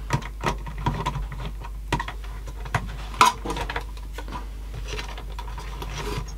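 Small clicks, taps and light rattles of hands handling the plastic front panel and circuit board of a Teac cassette deck, with one sharper knock about three seconds in.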